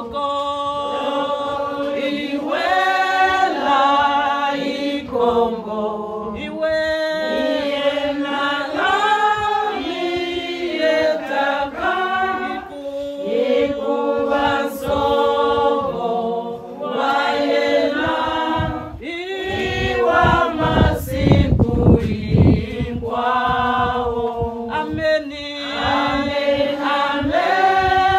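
A group of women singing unaccompanied, holding long notes in several overlapping voices. A low rumble sounds under the singing about two-thirds of the way through.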